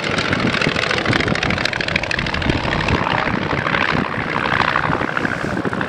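Polikarpov Po-2 biplane's five-cylinder Shvetsov M-11 radial engine and propeller running steadily in a flypast, a rapid even beat.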